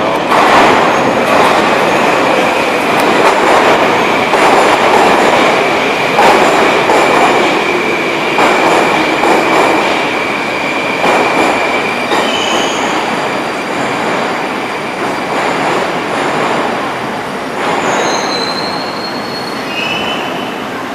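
Moscow-2020 (81-775/776/777) metro train moving along the platform: loud rumble of the wheels with a steady high squeal for about the first half, easing off and getting quieter, with a few short high electrical tones near the end.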